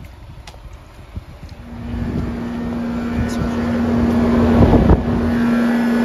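Outdoor heat pump unit running: a steady hum with fan and airflow noise that sets in about two seconds in and grows louder, with a brief thump shortly before the end.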